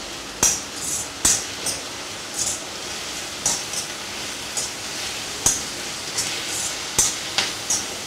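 Metal spoon scraping and knocking against a black kadai as onion and capsicum are stirred, with irregular clinks about once a second over the steady sizzle of the vegetables frying in oil.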